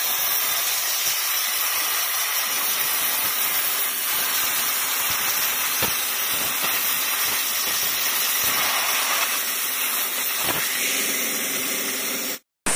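CNC plasma cutter torch cutting through steel plate: a steady hiss from the arc and gas jet, which cuts off suddenly near the end.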